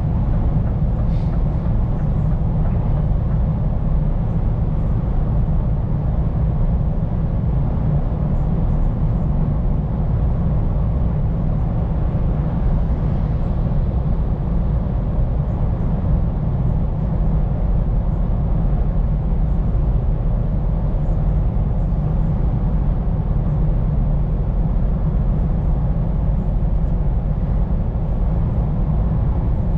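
Scania P410 truck driving at a steady speed: a constant low diesel engine drone with road and tyre noise. It is heard from inside the cab.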